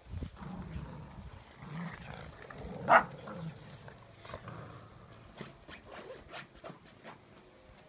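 Dogs growling low as they tug on a rope between them, with one short, loud bark about three seconds in; after that, quieter scattered clicks and scuffles.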